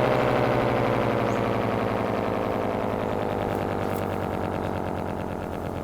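Homemade electric air-raid siren winding down: a loud, harsh multi-tone wail whose pitch and volume fall steadily. Its gritty, granulator-like edge comes from unevenly spaced stator ports.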